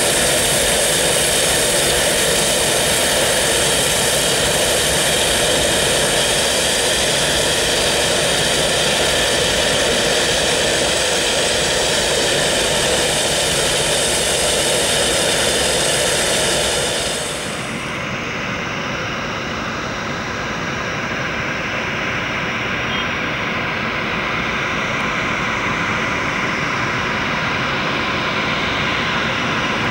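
Boeing 737-300's CFM56-3 jet engines at take-off thrust, a loud, steady jet noise with a high whine. About 17 seconds in, the sound changes abruptly: the highest whine drops out and it dips slightly, then it slowly grows louder again.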